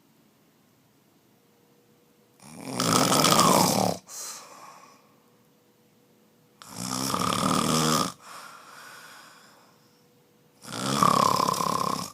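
A man snoring loudly in his sleep: three long, rasping snores about four seconds apart, each followed by a quieter breath.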